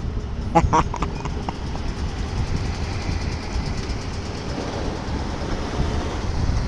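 Train rolling along the rails, a steady low rumble of wheels on track.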